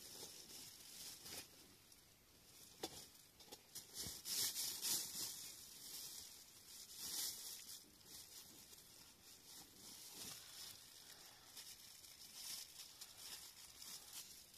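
Plastic bag rustling and crinkling as it is handled, in irregular bursts with a few louder crackles.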